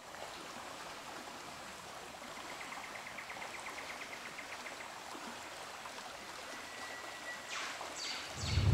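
Riverbank ambience: a steady hiss of flowing water, with a fast trilling call partway through and a few sharp calls near the end. Music with deep drum-like hits comes in just at the close.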